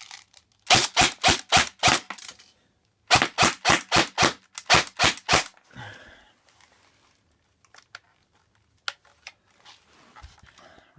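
Airsoft electric AK rifle firing single shots in two quick strings, about seven and then about nine, roughly four a second, as a Battleaxe flash magazine feeds it BBs. A few faint clicks follow.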